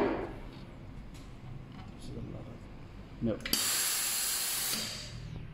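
Steam wand of a Victoria Arduino Eagle One espresso machine blowing off a short burst of steam after frothing milk: a loud hiss starting abruptly about three and a half seconds in, lasting about a second and a half and then fading, the wand being purged.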